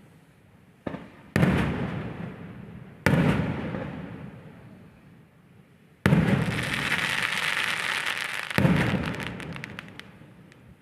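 Fireworks going off: sharp bangs about one and a half and three seconds in, each fading into a long rumble. A third bang about six seconds in starts a couple of seconds of dense crackling, followed by another bang and scattered cracks near the end.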